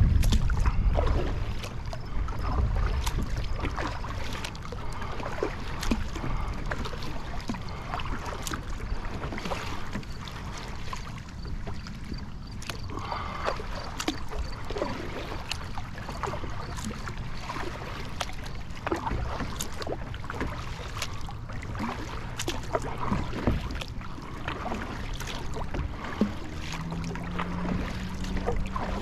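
Water splashing and lapping against a Field & Stream Eagle Talon 12 kayak on the lake, with scattered small splashes and knocks. Wind rumbles on the microphone, heaviest in the first couple of seconds, and a low steady hum comes in near the end.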